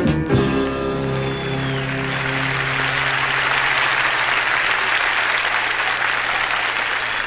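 A live gospel song ends on a final chord right at the start, and the audience applauds. The chord fades over about two seconds while the applause builds and keeps going.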